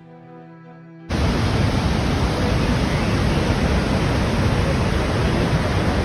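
Niagara's Horseshoe Falls: a loud, even roar of falling water that cuts in suddenly about a second in, after a held chord of orchestral music.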